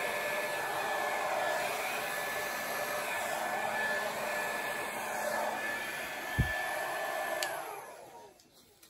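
Hair dryer blowing wet acrylic paint across a canvas, running with a steady whine. There is a single low thump about six seconds in. Near the end it is switched off and its whine falls away as it spins down.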